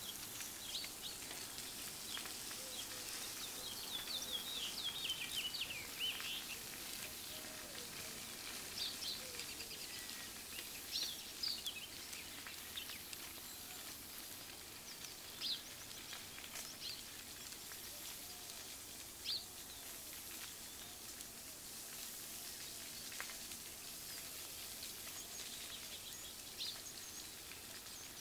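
Small songbirds chirping in short calls and trills over a steady outdoor hiss, with a busy run of calls a few seconds in and single chirps scattered after.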